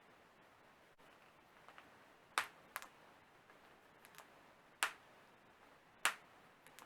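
Toe joints cracking: three loud, sharp pops spaced a second or two apart, with a few fainter clicks between them.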